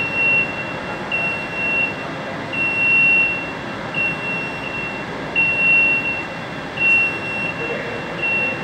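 Jungheinrich forklift's warning beeper sounding as the truck moves, a high single-tone beep repeating evenly about once every second and a half over a steady background hum.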